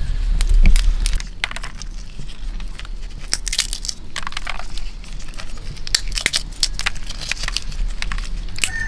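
Irregular crunching and crackling of dry plant material, sharp snaps at an uneven pace, over a low rumble that is strongest in the first second.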